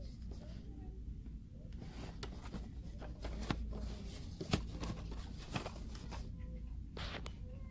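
Cardboard toy box with a clear plastic window being handled and turned over: a string of sharp plastic clicks and cardboard scrapes, the loudest about halfway through, over a low steady hum.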